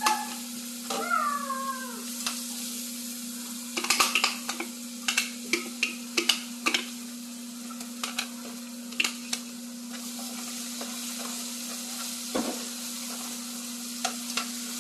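Chopped food sizzling as it hits hot oil in a non-stick saucepan, over a steady low hum. A cluster of sharp clicks and taps from the plastic cup and spoon against the pan comes between about four and seven seconds in. A brief falling squeal sounds about a second in.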